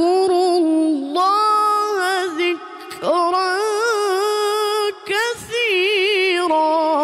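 A 15-year-old boy's voice reciting the Qur'an in melodic tilawah style, holding long, ornamented notes with a fast wavering vibrato. The phrases break for breaths about a second in, just before three seconds and about five seconds in.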